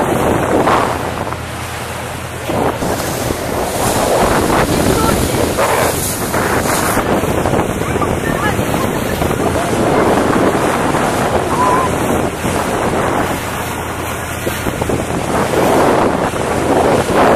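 Wind gusting on the microphone over open sea, swelling and fading every few seconds, with the wash of water and a steady low hum underneath.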